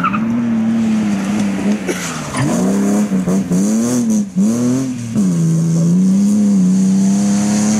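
Rally car engine at high revs, its pitch rising and dropping several times in quick succession from about two and a half to five seconds in, then holding steady as the car powers away.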